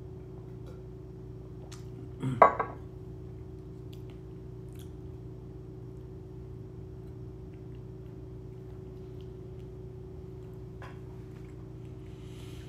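A drinking glass set down on a kitchen counter: a short knock with a clink about two seconds in, over a steady low hum. A few faint clicks follow later.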